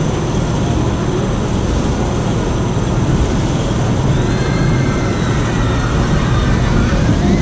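Steel roller coaster train running along its track: a loud, steady rumble that builds slightly, with faint high whining tones coming in about halfway through.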